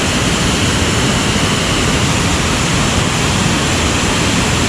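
Waterfall pouring close by, a loud, steady rushing of falling water.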